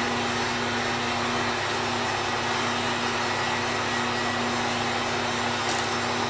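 Steady whirring of a small electric blower motor running at constant speed, with a low hum under the rushing air.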